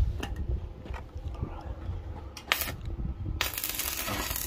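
Electric welding arc crackling as tack welds are laid: a short burst about two and a half seconds in, then a steady crackle from about three and a half seconds on.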